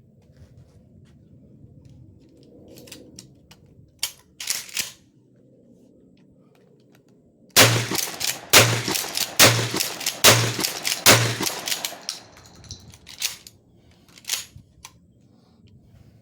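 Mossberg 500 12-gauge pump-action shotgun fired five times in quick succession, about a second apart, each shot ringing out. A few lighter clicks of the action come before and after the shots.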